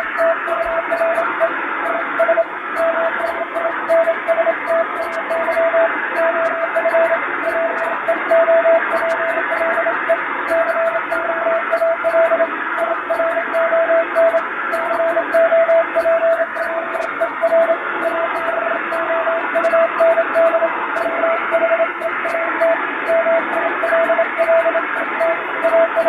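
Hand-sent Morse code (CW) from a telegraph key: a single mid-pitched tone keyed into dots and dashes, spelling out an English plain-language radiotelegram, over a band of hiss with fading added to imitate shortwave radio reception.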